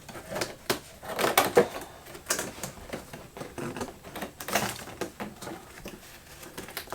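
Corrugated cardboard panels being handled and fitted together: irregular taps, scrapes and rustles as the tabs are pushed through the slots.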